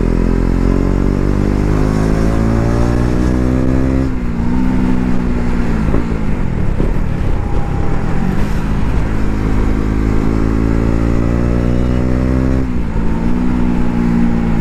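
KTM 250 Duke's single-cylinder engine accelerating hard under load. Its pitch climbs steadily and drops sharply at an upshift about four seconds in, then climbs through the next gear and shifts again near the end.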